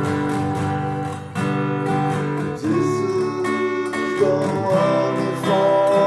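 Acoustic guitar strumming chords in D major as part of a song, in an instrumental stretch between sung lines.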